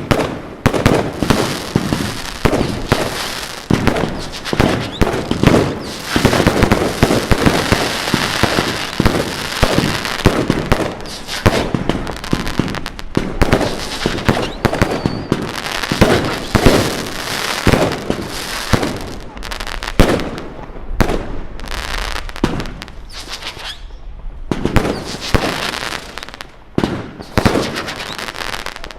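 Fireworks going off: many rapid bangs and crackles one after another, at their densest about six to eleven seconds in, with a brief lull about five seconds before the end.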